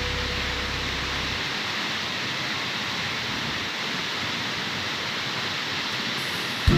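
Waterfall rushing as a steady, even roar, with the last low note of background music dying away in the first second and a half.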